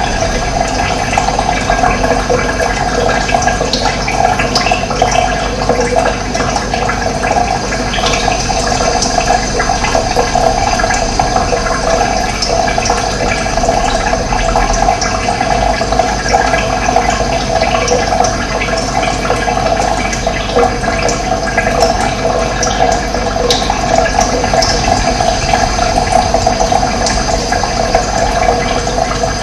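Running water, a steady, continuous flow like a stream or small cascade.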